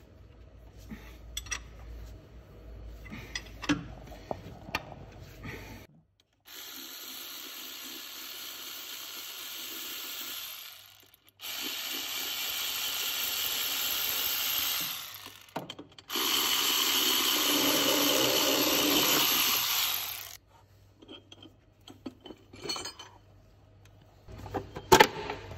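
Ratcheting spanner clicking on a bolt, then a cordless power ratchet running in three bursts of about four seconds each as it backs out three 16 mm bolts, each burst louder than the last. A few clicks follow, and a sharp knock comes near the end.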